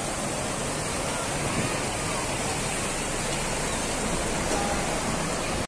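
Shallow river rapids rushing steadily over rocks and a low weir.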